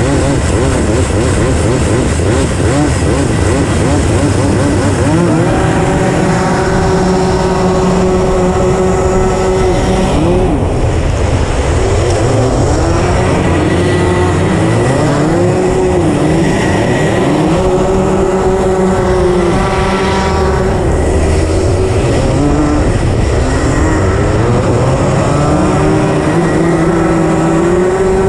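Racing kart engine heard from on board: it runs low and uneven at first, then about five seconds in rises to high revs and holds there. The pitch dips and climbs again several times as the kart brakes and accelerates through corners on the ice track, with other karts' engines nearby.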